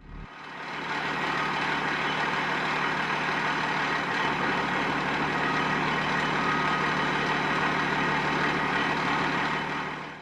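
Fire truck's diesel engine running steadily: a constant low hum under a broad rushing noise, building up over the first second.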